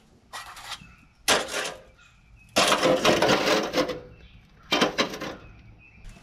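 Rusty cut-off exhaust pipe pieces being handled and set down on a rotted-out muffler: four rattling clanks and scrapes of corroded sheet metal, the third the longest and loudest.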